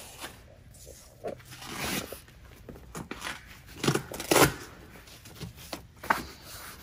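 Velcro (hook-and-loop) fasteners being pulled apart and pressed together on an upholstered pedicure-chair backrest, with handling rustle: a few short rasping rips, the loudest about four seconds in.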